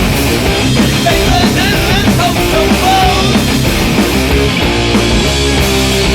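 Background music: loud, distorted rock with a steady beat.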